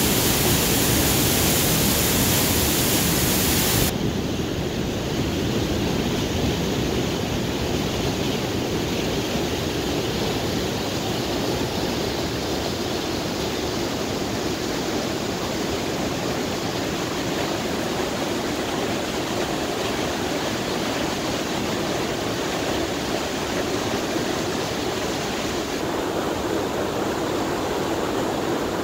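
Steady rushing of a whitewater river pouring through a narrow rock gorge. The upper hiss drops away suddenly about four seconds in, and the sound is slightly quieter after.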